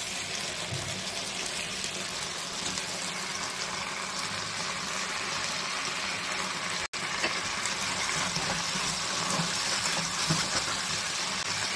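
Onions and capsicum frying in a hot pan in a sauce of soy, tomato sauce and vinegar, making a steady watery sizzle while a spatula stirs them. The sound breaks off briefly about seven seconds in.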